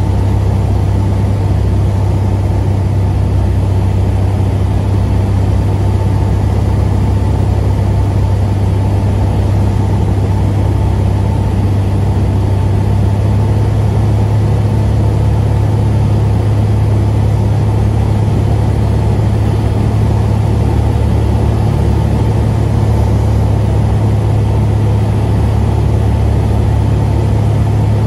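Cessna 182's six-cylinder piston engine and propeller running steadily, heard inside the cabin as a loud, even low hum with air rushing over it.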